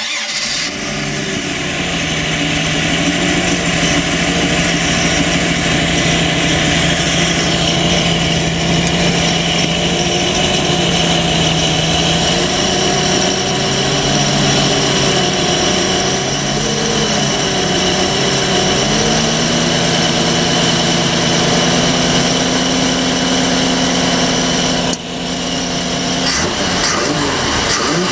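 Mercruiser 4.3 V6 boat engine running after a fresh start. It holds a steady speed, then is revved up and down a few times, runs faster for several seconds, and is revved again near the end.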